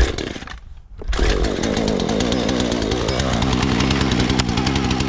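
Husqvarna 120 Mark III two-stroke chainsaw pull-started on half choke: a sharp pull on the starter cord, then the engine catches about a second in and keeps running steadily.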